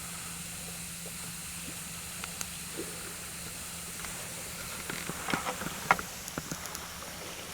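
Wood campfire burning with a steady hiss and scattered sharp crackles and pops, several of them close together about five seconds in.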